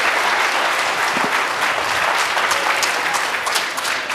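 Audience applauding, a dense crackle of many hands clapping that eases off near the end.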